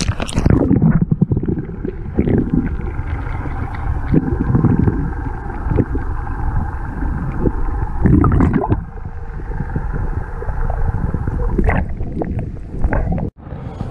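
Lake water sloshing and gurgling, heard muffled from underwater, with several louder swishes. Near the end it comes back out of the water into clearer splashing and dripping.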